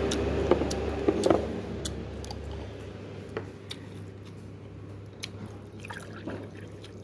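Iced tea poured from a pitcher into a small ceramic cup near the end, after a few sharp knocks about a second in. A low rumble in the background stops about three seconds in.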